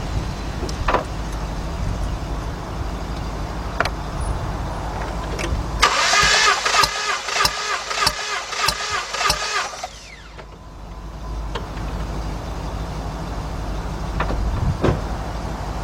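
Jeep Liberty 3.7 V6 cranking on its starter for about four seconds during a compression test, as an evenly pulsing whine, then stopping abruptly. The gauge reads about 120 psi, but the mechanic says the compression building up sounds different from the other cylinders.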